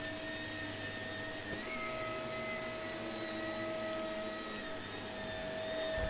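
Shark upright vacuum cleaner running steadily on carpet, its motor whine held at an even pitch, with faint ticks of carpet powder and grit being sucked up.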